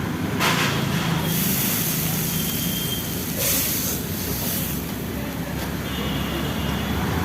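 Steady street background noise with a low hum, broken by two bursts of high hissing lasting a second or so each, in the first half.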